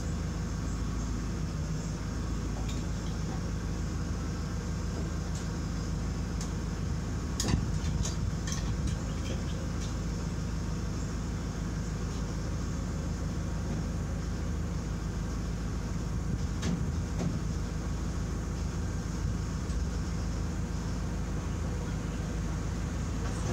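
Steady low mechanical hum, with a few sharp metal clanks from work on a pickup truck's bed: a cluster about seven to nine seconds in, the loudest first, and a couple more later.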